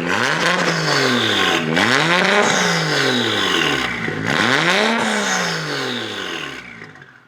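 Car engine revving three times, its pitch climbing and falling back with each rev.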